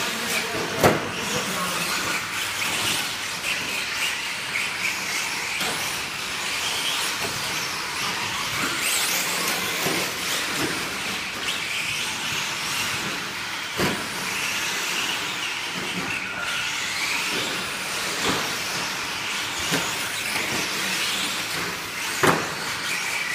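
Several electric 4x4 short course RC trucks running on a dirt track: a steady hiss of small motors and tyres with rising and falling whines, broken by sharp thuds as trucks land off jumps, the loudest about a second in and near the end.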